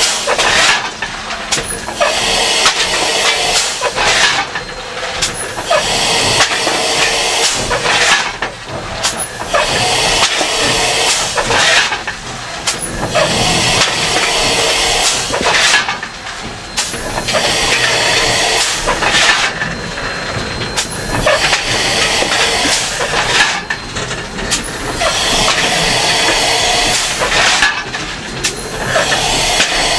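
Southern Railway 2-8-0 steam locomotive No. 630 heard from inside its cab while under way: a loud, steady hiss of steam and working machinery. The noise swells and eases about every four seconds.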